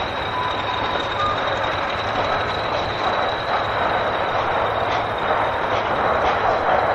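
English Electric Class 40 diesel-electric locomotive running, its turbocharger giving a steady high whistle over the engine noise. A few clicks, like wheels over rail joints, come in near the end.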